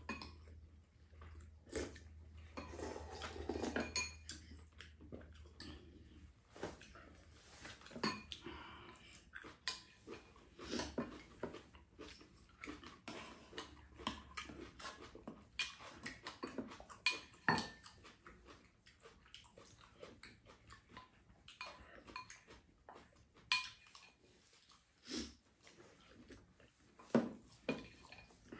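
Spoons and chopsticks clinking and scraping against ceramic rice bowls and a frying pan during a meal, in many short, irregular clicks, with eating noises in between.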